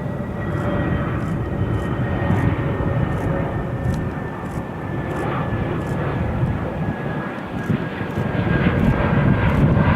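Jet airliner's engines running: a steady rumble with a thin high whine that falls slowly in pitch, growing a little louder near the end.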